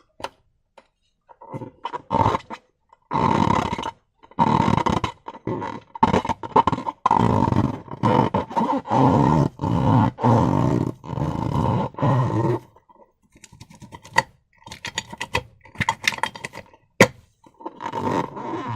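Slime and rubber balloons being squeezed and worked by hand: irregular squelching strokes, heaviest in a long stretch in the middle, then lighter crackling clicks and one sharp click near the end.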